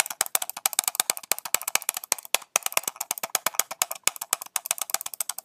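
A computer mouse button clicked rapidly and steadily, about ten sharp clicks a second.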